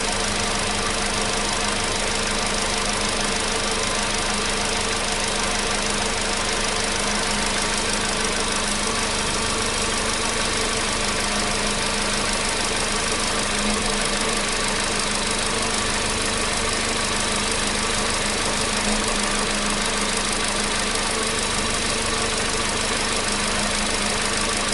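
Volkswagen Polo Sedan engine idling steadily while warming up after a cold start, without the cold-start knock it used to have.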